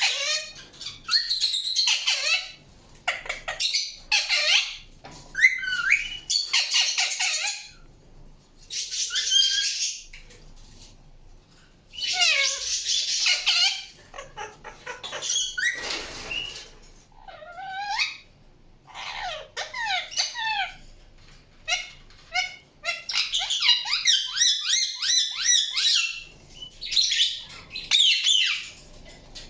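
Indian ringneck parakeet calling in a long string of short, harsh squawks and chirps, some sliding quickly up and down in pitch, with brief pauses between bouts.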